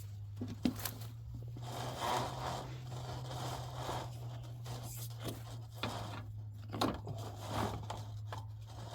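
A cable rubbing and scraping inside a drain pipe in irregular strokes, with a couple of sharp clicks, over a steady low hum.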